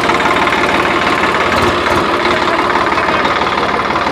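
Swaraj 855 FE tractor's three-cylinder diesel engine idling steadily, with a continuous knocking diesel beat.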